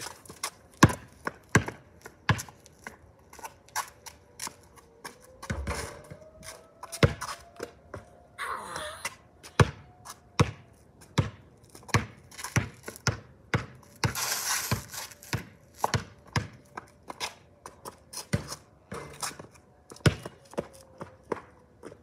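A basketball dribbled on a concrete driveway: a run of sharp bounces, about one to two a second, with two brief rushes of hiss. Beneath them a faint tone drifts slightly up and down in pitch, a distant outdoor warning siren.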